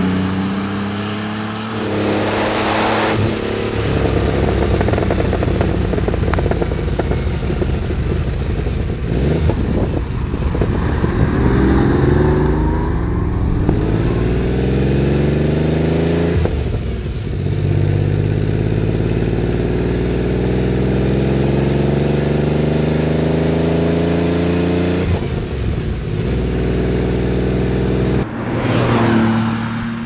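Porsche 930 Turbo's 3.0-litre turbocharged flat-six engine pulling hard through the gears. Its pitch climbs in long pulls, broken by gear changes about halfway through and again later, with a rushing swell near the end as the car goes by.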